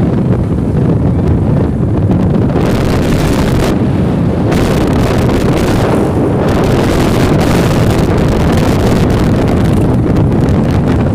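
Wind buffeting the microphone on a moving motorcycle, a loud, steady rushing with the bike's engine and road noise underneath.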